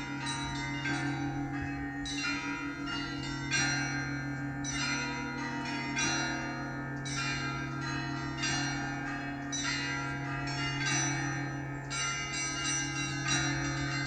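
Russian Orthodox cathedral bells being rung: many bells of different pitches struck in a quick, continuous pattern over the steady hum of a large bell, with a stronger stroke about every second.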